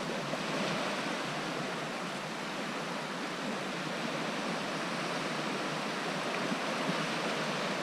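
Steady wash of the sea on a shingle beach: an even hiss with no single waves standing out.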